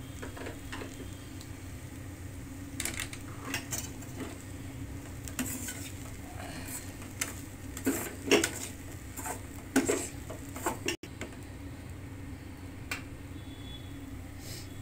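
Stainless-steel kadai clinking and knocking as poha upma is stirred in it and the pan is handled. There are scattered sharp metal clicks, loudest about two-thirds of the way in, over a steady low hum.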